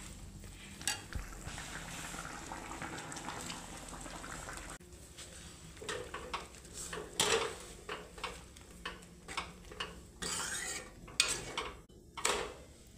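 Steel ladle stirring dal in a stainless steel kadhai, clinking and scraping against the pan in irregular strokes. A steady hiss fills the first five seconds or so, and the clinks grow sharper and more frequent after that.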